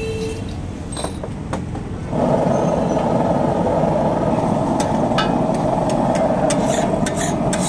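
A steady low rumble that jumps up suddenly about two seconds in and then holds, with several sharp metal clinks of spatulas on an iron griddle near the end.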